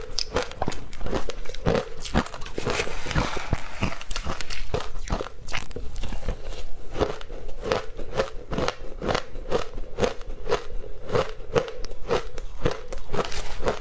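Crushed ice coated in matcha powder being bitten and chewed, a steady run of sharp crunches at about three a second.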